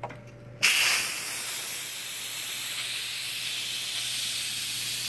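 Farberware electric pressure cooker venting steam through its lid's release valve: after a small click of the valve being turned, a loud steady hiss bursts on about half a second in. This is the quick release of the built-up pressure after cooking.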